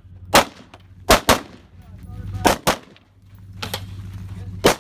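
AR-15-type carbine in .223 with a muzzle brake firing a string of about six shots at uneven spacing, some in quick pairs. A low steady hum runs underneath.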